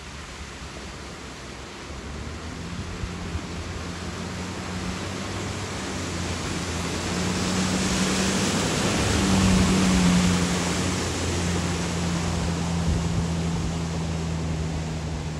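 Lamborghini Urus driving through deep floodwater: spray and splash from the tyres make a loud hiss, over the low steady drone of its twin-turbo V8. Both build to a peak as it passes close about ten seconds in, then ease as it moves away.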